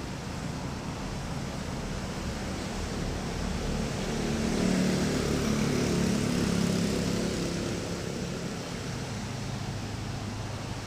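A motor vehicle's engine running with road and wind noise, growing louder about four seconds in and easing off again after about seven seconds.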